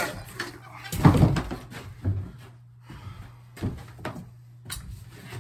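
Handling knocks: one heavy thud about a second in, then a few lighter knocks and clicks, as a caulking gun loaded with a tube of construction adhesive is handled and set down on a wooden ledge. A faint steady low hum runs underneath.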